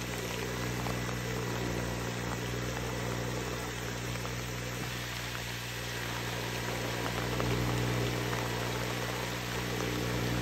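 Kubota riding rice transplanter's engine running at a steady pace as it plants in a flooded paddy, a little louder in the second half as it comes closer, over the hiss of rain falling on the water.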